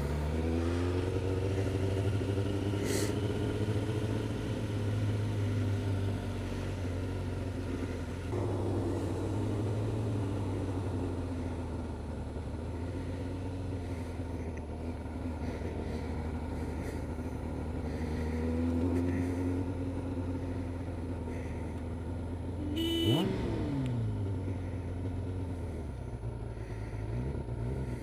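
Motorcycle engine heard from the rider's seat, pulling with rising revs, easing off at a gear change about eight seconds in, then pulling again, over a steady noise haze. About 23 seconds in there is a brief louder burst whose pitch drops quickly.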